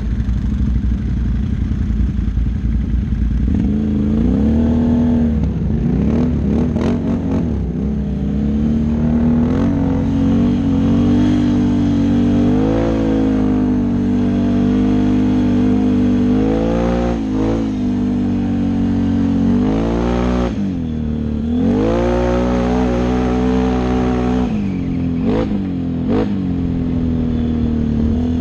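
Can-Am Outlander XMR 650 ATV's V-twin engine running under way, its pitch dropping and climbing again several times as the throttle is eased off and opened back up.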